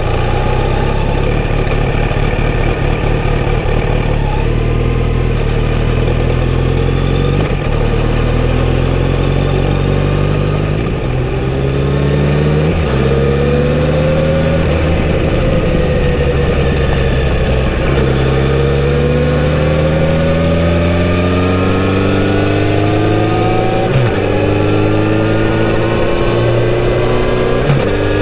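Kawasaki Z900RS inline-four engine through its stock exhaust, first running at low revs, then accelerating up through the gears: the revs climb, dip briefly at each shift and climb again, easing off once around the middle before pulling up through the gears again.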